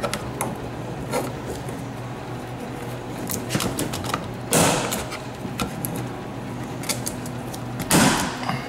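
A plastic fuel-filler-neck cover being prised and pulled out, its plastic retaining tabs clicking and scraping against the housing, with two louder rasping pulls about halfway through and near the end.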